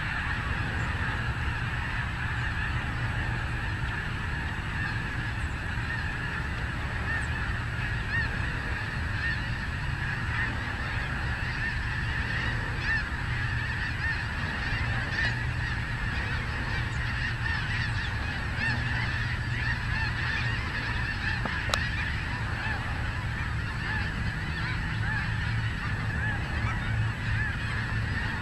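A large flock of snow geese calling continuously: a dense, steady din of many overlapping high honks.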